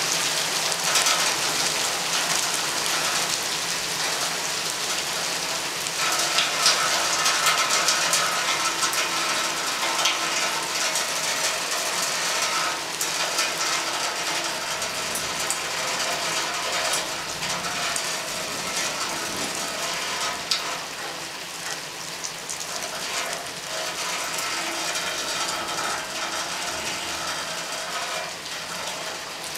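Steady rain during a thunderstorm, with a fast, dense patter of drops striking a hard surface, easing slightly in the second half.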